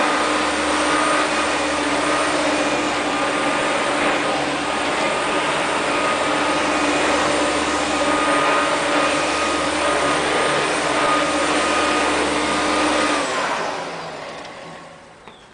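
Flymo Hover Compact 330 electric hover mower running steadily: a motor hum and a whine over a rush of fan air. About thirteen seconds in it is switched off and winds down, its pitch falling as the sound fades away.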